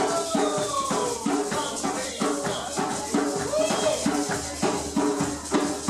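Hand percussion playing a steady, rhythmic groove, with shakers rattling on each beat. Near the start a higher pitched part slides downward, and it rises and falls again about halfway through.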